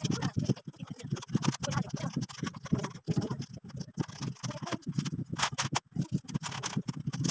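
Irregular knocking and clicking of a steel slotted angle-bar shelf rack being handled and its bolts screwed in.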